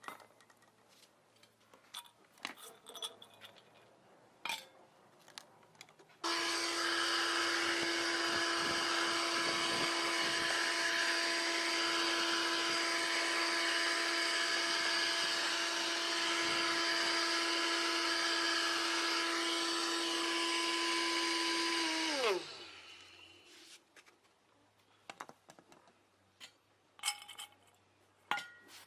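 Homemade vacuum cleaner's DC motor switched on about six seconds in, running with a steady high whine and rushing air for about sixteen seconds, then switched off and spinning down with a falling whine. Light clicks and handling knocks before and after.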